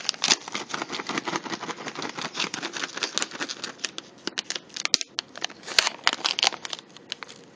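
Plastic treat bag crinkled and rustled continuously, a steady run of rapid crackles with a short pause about five seconds in, used to wake a ferret and draw it out for a treat.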